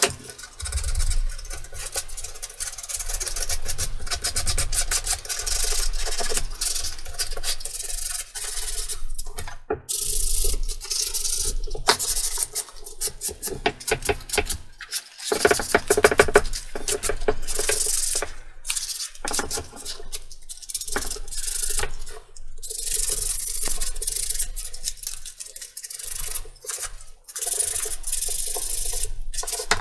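Hand sanding or scraping along the edges of a CNC-cut 6 mm MDF cutout to clean off tabs and fuzz: runs of quick rubbing strokes with short pauses between them.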